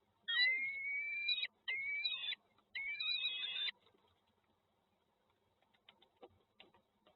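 Bird calls: three long, rising whistled calls in quick succession, followed by a few faint clicks.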